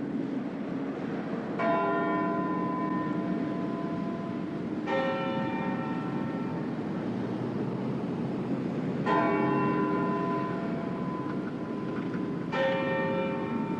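A clock's bell striking the hour of twelve: four slow, resonant strokes, each ringing on and fading before the next, over steady background noise.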